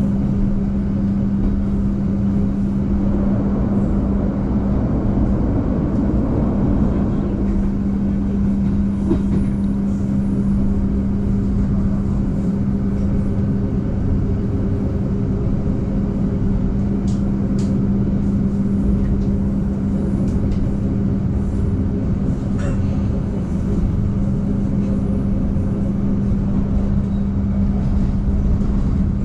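Argo Bromo Anggrek express train running at speed, heard from inside the passenger car: a steady low rumble with a constant hum, and a few faint ticks in the second half.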